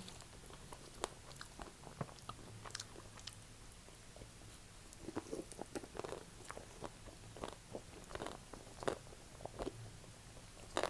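Close-up mouth sounds of someone eating chocolate-coated ice cream: soft bites, small crunches of the chocolate shell, and wet chewing and lip smacks, scattered irregularly.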